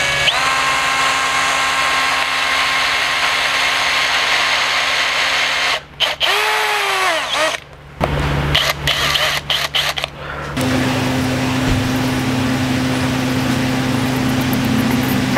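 Electric drill running steadily as its twist bit bores into a small wooden dowel plug, then revving up and spinning down. A few seconds later a power driver whirs in short stop-start bursts as it drives a screw into the wood.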